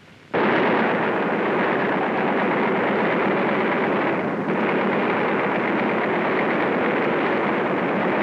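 A large crowd cheering and clapping: a dense, steady roar that starts abruptly just after the beginning and dips briefly about halfway through, heard on an old, narrow-band newsreel soundtrack.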